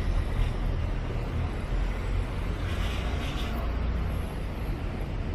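City street traffic: a steady low rumble of vehicles, with a hiss that swells and fades a little before the middle, as a vehicle passes.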